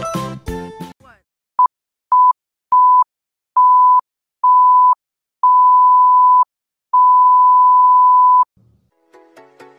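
An electronic beep tone sounding seven times in a row, each beep longer than the one before, the last about a second and a half long, after a music track cuts off about a second in.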